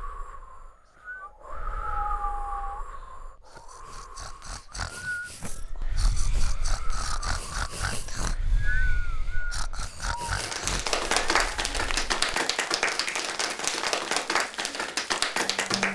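Animal sound effects of snuffling and grunting, with short chirping whistles, then from about ten seconds in a dense, steady crackling of a campfire.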